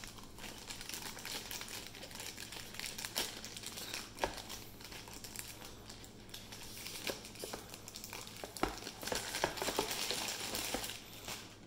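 Metallised anti-static plastic bag crinkling as it is handled and opened, with a few light taps, the crackling busiest near the end.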